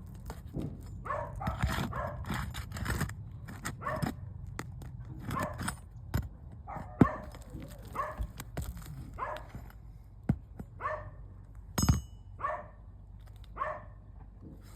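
A dog barking over and over, about once a second, with a few sharp knocks and clicks in between.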